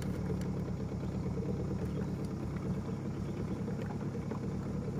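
A small river boat's motor running steadily at low speed, a constant low hum.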